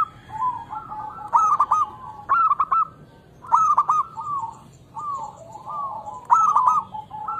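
Zebra dove (local Indonesian perkutut) cooing: four loud bursts of four or five quick, short notes, with softer coos between them.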